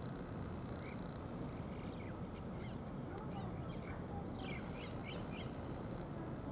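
Small birds chirping: scattered short high calls, with a quick run of notes about four and a half seconds in, over a steady low outdoor rumble.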